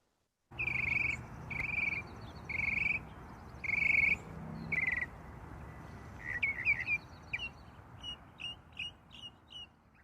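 Birds calling outdoors: a series of buzzy half-second calls repeated about once a second, then quicker short chirps in the second half, over a steady low background rumble. The sound starts abruptly about half a second in.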